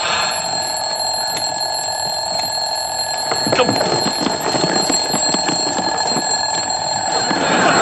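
Steady, continuous buzzing of a bee trapped inside a jacket, with cloth rustling and scuffling from about three and a half seconds in as the jacket is clutched.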